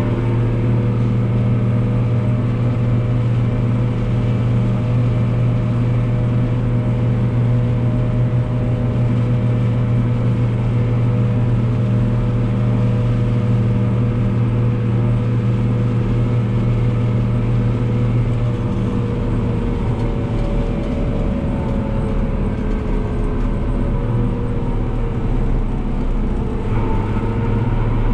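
New Holland TM165 tractor's six-cylinder diesel engine running steadily at road speed, heard from inside the cab. A steady whine sits over the engine note and climbs in pitch near the end.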